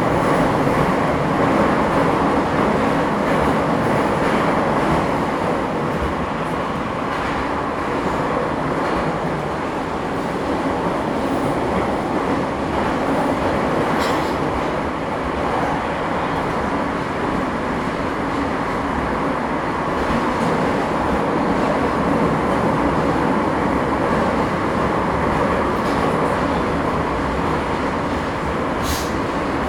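Inside a Bucharest Metro M2 train car running through a tunnel: the steady rush and rumble of the wheels on the rails and the air around the car, with a couple of faint clicks.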